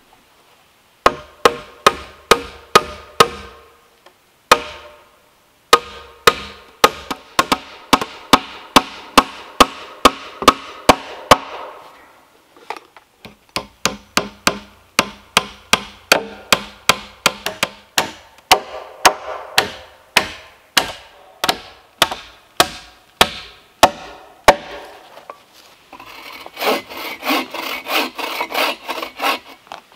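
Hammer blows on the log frame of a pole shed: sharp knocks, about two a second, in bouts with short pauses. About four seconds before the end a bow saw starts cutting through a log with quick back-and-forth strokes.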